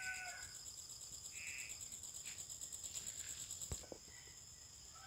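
Insects chirping in a steady, high, finely pulsing chorus, with a brief bird call about a second and a half in and a single sharp knock late on.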